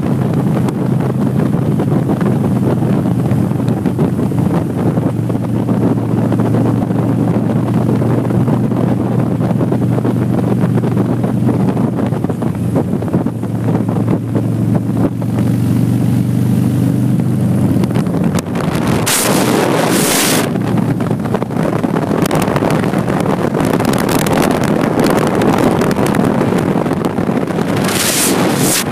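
Motorcycle engine running steadily at cruising speed under heavy wind noise on the microphone. About two thirds of the way through, the engine hum fades into the wind, with loud gusts buffeting the microphone, and the hum comes back near the end.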